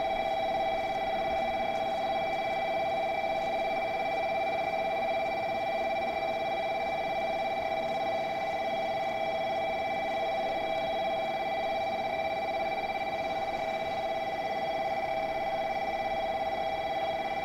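Electric warning bell ringing without a break, a steady metallic ring: the platform's approach alarm for an incoming train.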